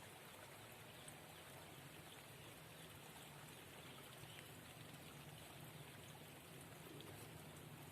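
Faint, steady hiss of water outdoors, with nothing else standing out.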